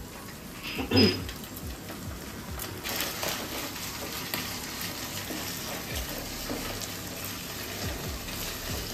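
Grated coconut and ginger paste frying in oil in a non-stick kadai, a steady sizzle with the slotted spatula stirring and scraping the pan. A short knock about a second in.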